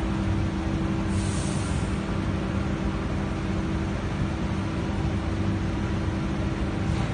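Adtranz–Siemens A1 metro train's GTO-VVVF traction inverter and induction motors humming at low speed: a steady whine over a low rumble. A brief hiss comes about a second in.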